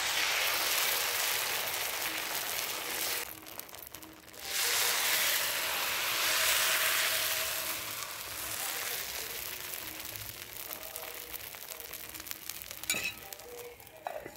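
Appam batter sizzling in a hot appam pan over a wood fire: a loud hiss that drops briefly a few seconds in, comes back, then slowly fades. Near the end there is a sharp metal clink as the pan and lid are handled.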